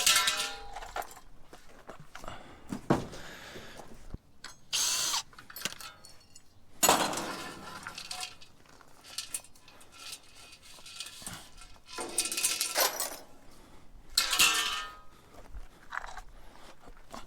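Hand tools working scrap: irregular scraping, clanks and several short screeches as wood and metal are pried and worked apart.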